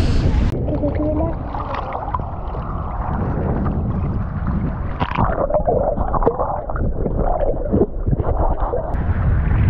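Muffled underwater sound from a camera dunked in shallow sea water: gurgling and sloshing with wavering low tones, all high sounds cut off. The sound turns muffled about half a second in and clears again just before the end, as the camera comes back above the surface.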